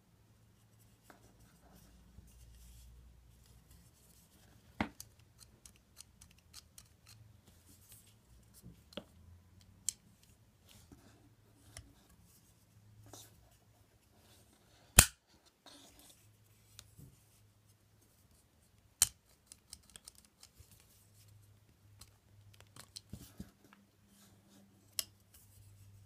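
Cold Steel Pocket Bushman folding knife being worked by hand: sharp metal clicks and snaps as the blade is opened, locked and folded shut, the loudest about halfway through, with soft handling rubs between.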